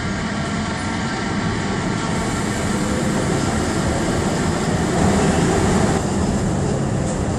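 Budapest Metro Line 1 train running through the tunnel, heard from inside the car: a steady rumble of wheels on rail. Steady tones sound over it for the first couple of seconds. The noise grows a little louder around five seconds in and eases about a second later as the car comes alongside the station platform.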